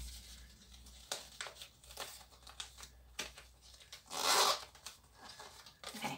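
Glossy catalogue paper being folded and creased by hand: light crinkling and rustling, with one louder crackle of the paper about four seconds in.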